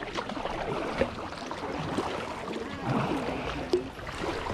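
Kayak paddles dipping and pulling through the water, with small splashes and drips between strokes.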